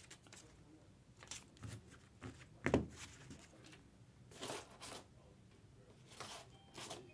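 Faint, scattered rustles and crinkles of trading cards and their wrappers being handled, with one sharper knock a little under three seconds in.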